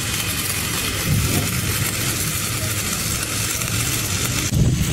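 Stick-welding (manual arc) electrode burning against the steel plate of an excavator bucket seam: a steady, even crackling hiss that stops abruptly near the end as the arc breaks.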